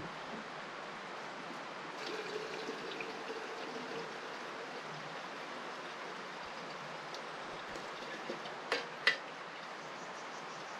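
River water running steadily. Two sharp clicks come close together near the end.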